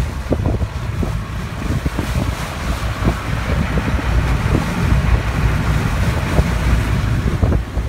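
Wind buffeting the microphone over the rush of wake water along the hull of a motor yacht cruising under way, a steady low rumble with scattered gusts.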